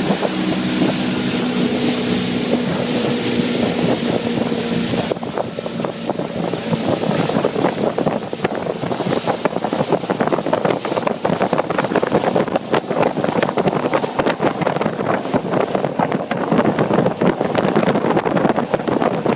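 Motorboat under way: a steady engine hum over rushing water for about the first five seconds, then gusty wind buffeting the microphone takes over as the engine tone fades into the noise.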